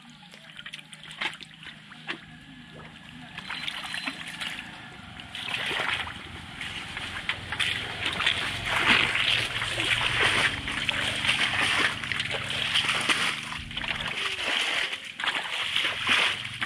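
Shallow muddy water splashing and sloshing in many short strokes as people wade and work a bamboo-framed push net through it, getting louder about a third of the way in.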